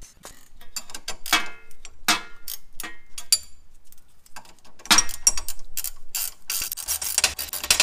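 Ratcheting wrench clicking as a front-suspension bolt is run down and tightened. The clicks come in several quick runs, with a short pause near the middle.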